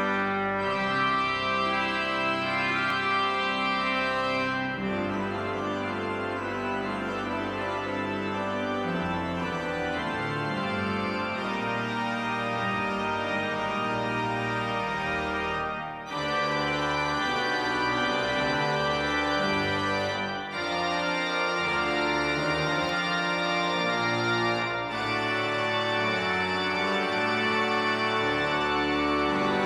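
Organ playing slow, held chords in a hymn-like piece, with short breaks between phrases.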